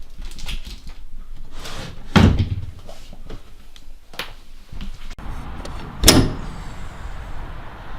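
A series of knocks and thumps, the two loudest about two seconds in and about six seconds in, with smaller clicks and knocks between.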